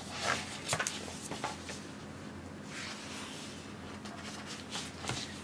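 Paper pages of a picture book rustling and being leafed through by hand, with a few short rustles and clicks early on, a soft swish of turning pages about three seconds in, and faint handling taps near the end.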